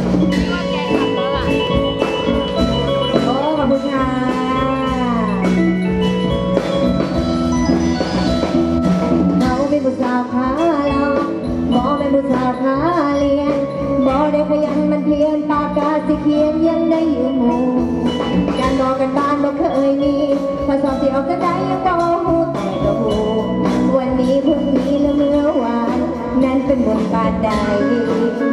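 Live Isan folk band music: a woman singing through a microphone over a pong lang (wooden log xylophone), drums and other band instruments, playing continuously.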